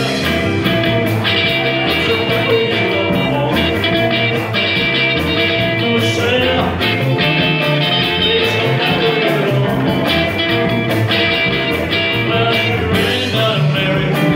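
Live rock and roll band playing: electric guitars over a drum kit, at a steady loud level.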